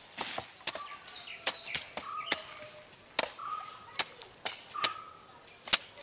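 Machete blows chopping into tender coconuts: sharp, separate chops at uneven intervals, about nine in all. Short bird calls sound between the chops.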